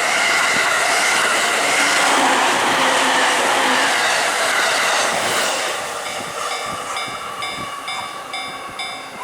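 JR East E231-1000 series electric commuter train passing at close range: loud wheel-and-rail noise that dies away about six seconds in. Then the level-crossing warning bell is left ringing on its own, about two strokes a second.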